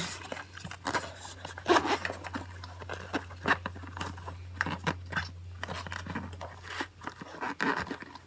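Handling noise from a packed bicycle saddle bag: scattered rustles, clicks and taps of its fabric, buckles and the tools inside, coming at irregular moments over a steady low hum.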